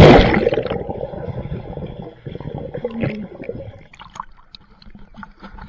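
A big splash into swimming-pool water, loudest at the very start and fading over about a second, followed by water sloshing and gurgling.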